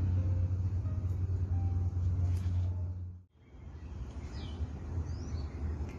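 Steady low outdoor rumble that drops out for a moment about halfway through, with a few faint bird chirps.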